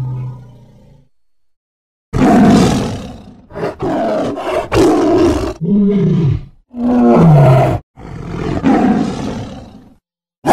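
Tiger roars: a string of about five loud, growling roars beginning about two seconds in, two of them falling in pitch. The tail of an earlier sound fades out in the first second, before a brief silence.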